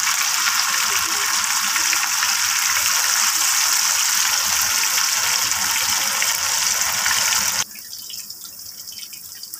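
Fish pieces deep-frying in hot oil: a steady hissing sizzle that drops suddenly to a much quieter level about eight seconds in.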